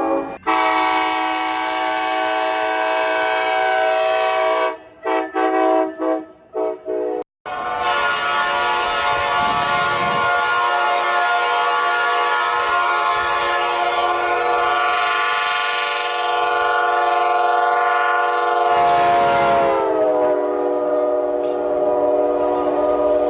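Coaster commuter locomotive's multi-chime air horn sounding a chord, broken into several short blasts about five seconds in, then held in one long blast. Just before the end the whole chord drops in pitch as the train passes, and it keeps sounding at the lower pitch.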